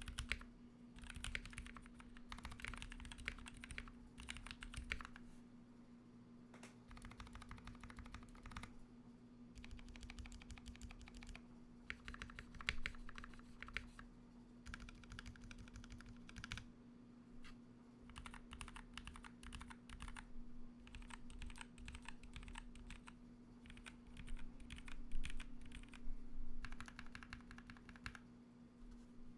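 Typing on a Royal Kludge RK68 mechanical keyboard with lubed and filmed Cherry MX Black linear switches in a foam-modded case on a tape-modded PCB: runs of keystrokes a few seconds long with short pauses between, the loudest flurry near the end. A steady low hum runs underneath.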